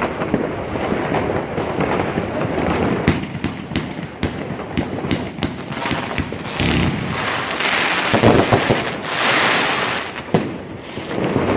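Katan Big Cactus firework going off: a dense run of crackling and sharp cracks with bangs mixed in, easing off near the end.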